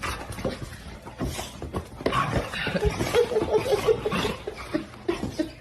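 A person laughing in quick repeated bursts, amid irregular knocks and clatter.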